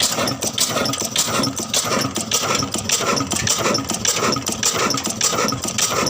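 Old engine running at a steady idle with a regular knocking beat of about four to five strokes a second.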